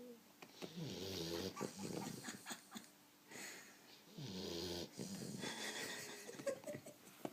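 Twelve-week-old Boxer puppy snoring in deep sleep: two long snoring breaths with a rattle, about three and a half seconds apart, and a brief whistle near the end.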